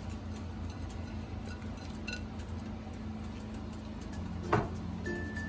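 Pot of water at the boil with a steady low rumble, a few light clicks and one sharper knock about four and a half seconds in as chopped ingredients go into the pot.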